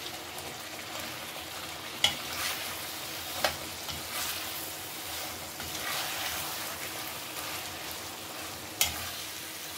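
Onion-tomato masala frying in oil in a metal kadai, sizzling steadily as steamed masoor dal dumplings are stirred in with a metal spatula. A few sharp metal knocks against the pan, about two seconds in, again a second and a half later, and near the end.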